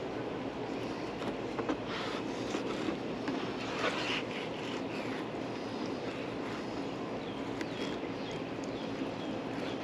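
Fillet knife working through a lane snapper fillet, giving a few short scrapes and clicks during the first half, over a steady background hiss with a low hum.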